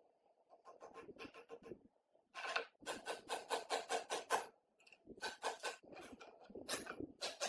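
Quick rubbing or rasping strokes, as when a part is scrubbed, sanded or filed by hand. They come in runs of several strokes, about four a second, with short pauses between the runs.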